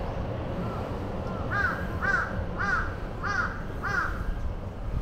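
A crow cawing five times in quick succession, about two caws a second, over a low steady background rumble.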